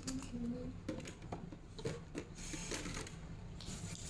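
Irregular clicks and rustling of small objects being handled by hand, over a low steady hum.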